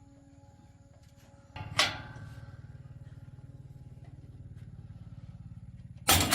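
A motor switches on with a sharp click about a second and a half in and runs steadily with a low, fast pulse; near the end a loud, harsh burst of noise breaks in over it.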